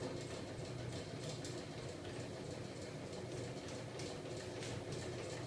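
Homemade magnet-driven crankshaft rig running on a small 12 V DC electric motor: a steady low hum of the motor and spinning flywheels, with irregular light ticks and clicks from the linkages.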